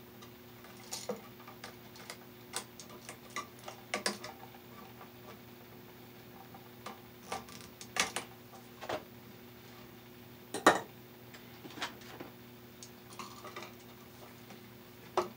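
Scattered small metallic clicks and ticks of pliers and a screwdriver on a light switch and copper wire, as a wire is looped and fastened under the switch's terminal screw. The clicks come irregularly, one sharper click about ten seconds in.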